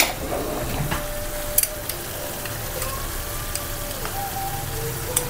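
Creamy sauce simmering in a pan on the hob with a steady soft sizzle, and a single light click about a second and a half in.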